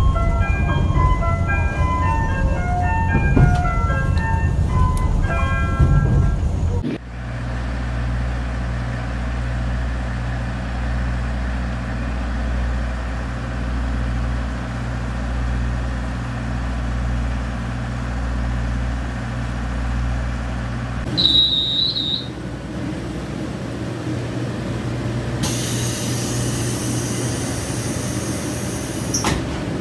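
A melodic music jingle for about the first seven seconds, then a KiHa 40-series diesel railcar's engine idling with a steady low hum. Around two-thirds of the way in there is a short high-pitched tone, and a hiss sets in near the end.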